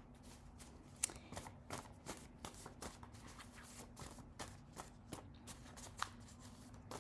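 A deck of reading cards being shuffled by hand: a soft, irregular run of card flicks and taps, two or three a second.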